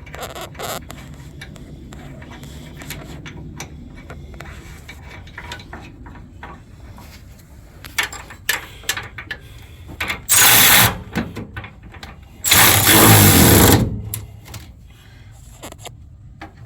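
Scattered ratchet clicks and the clatter of tools on truck hardware. Then come two loud bursts of an impact wrench running down the air bag bracket bolts, the second longer, about a second and a half. The bolts are snugged now and will be torqued to spec later.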